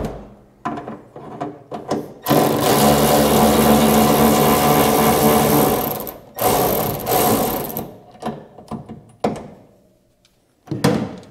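Milwaukee cordless electric ratchet whirring as it backs out a 1/2-inch hood-hinge bolt. There is one run of nearly four seconds, then a shorter run of over a second, with small clicks and knocks around them and a short thump near the end.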